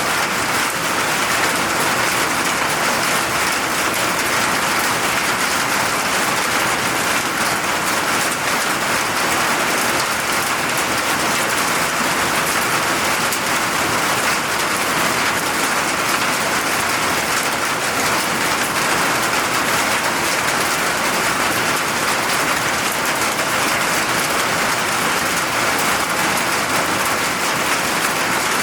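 Steady, heavy rain falling, an even dense hiss of drops with no let-up.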